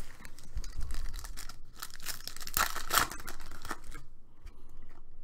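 Foil wrappers of Select basketball trading-card packs being torn open by hand, crinkling as they rip; the tearing is loudest in the middle, then gives way to quieter rustling of the cards.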